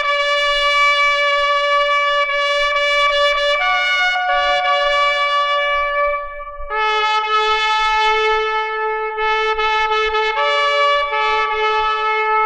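Slow music of long held brass notes, trumpet-like, the pitch changing only every few seconds, with a brief dip in loudness about halfway where it steps down to a lower note.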